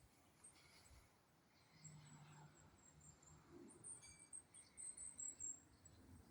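Near silence with faint, very high-pitched bird chirps: a quick series of short notes about four seconds in, over a faint outdoor hiss.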